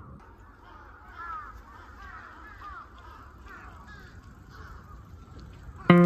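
Crows cawing, a series of harsh calls repeated over a few seconds. Guitar music comes in loudly near the end.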